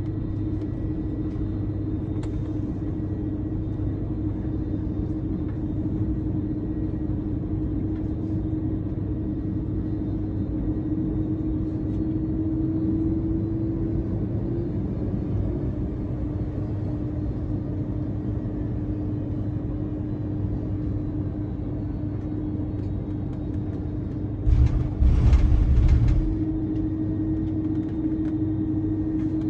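Steady engine and airflow rumble inside an Airbus A330-200 airliner's cabin, with a steady hum running through it. About 25 seconds in, a louder rumbling burst lasts about a second and a half.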